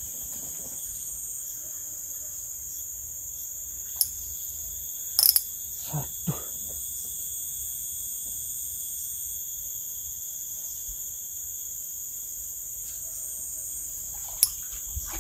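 Steady, high-pitched drone of an insect chorus, with a few sharp clicks about four, five and fourteen seconds in and two soft thumps around six seconds.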